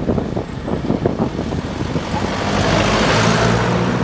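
Road traffic heard from a moving car: a vehicle passing close by, its rush swelling to a peak about three seconds in and then easing, over a steady low engine hum.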